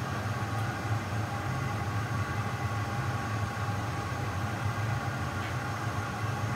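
Steady low roar and hum of glass-studio equipment: the gas-fired glass furnace and electric fans running without a break.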